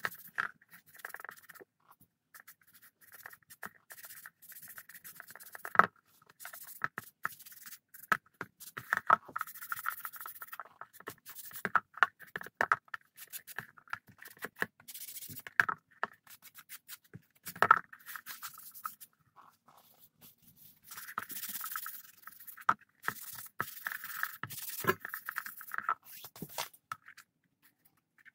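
Irregular scratchy rubbing strokes of a small hand-held pad worked over a painted leather bracer, broken by small handling clicks and a couple of sharp knocks as the bracer is moved on a stone countertop.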